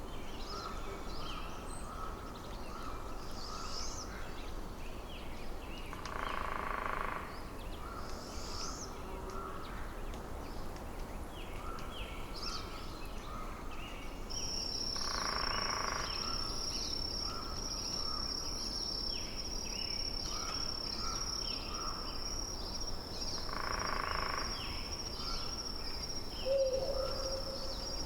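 Forest ambience: a low, steady wind-like rush under many short bird chirps. A louder call lasting about a second recurs roughly every nine seconds. From about halfway through, a steady high-pitched thin tone runs on.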